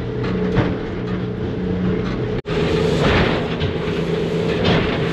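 Water taxi's engines droning steadily inside the boat's cabin, with the rush of water and a few dull thumps as the hull meets choppy waves. The sound drops out for an instant about halfway through.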